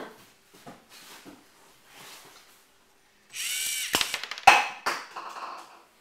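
Lego Mindstorms NXT motor whirring for about a second and a half, its whine rising and falling as it drives the shooterbot's ball-firing mechanism. Two sharp knocks half a second apart and a short clatter follow. Faint small clicks come before.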